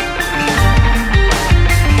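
Background music: rock-style instrumental with guitar, bass and a steady beat.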